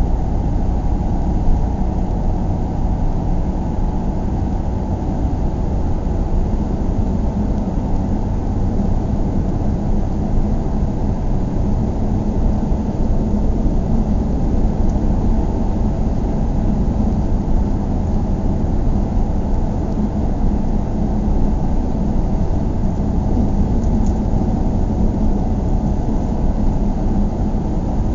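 Steady low rumble of a car driving along, mostly tyre and road noise with engine hum, even and unchanging throughout.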